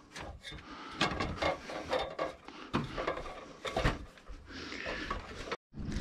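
Aluminium extension ladder being climbed: irregular knocks and scraping of shoes and hands on the metal rungs and rails.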